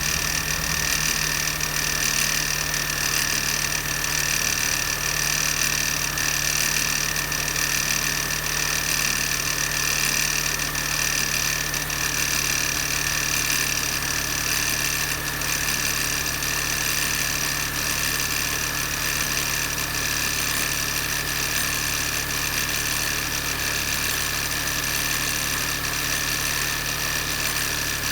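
MINI Cooper S (R53) supercharged four-cylinder engine idling steadily, with a steady high whine over it. This is the abnormal noise the car is being checked for.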